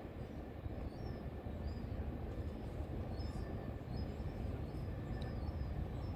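Steady low outdoor rumble with faint, short high bird chirps repeating every second or so.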